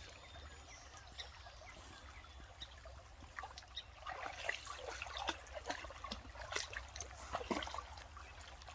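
Creek rapids: water running and splashing, a steady trickling sound that grows louder about halfway through.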